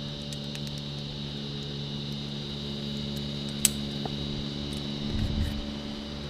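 Steady mechanical hum holding several low tones, with a few faint clicks, the clearest about halfway through.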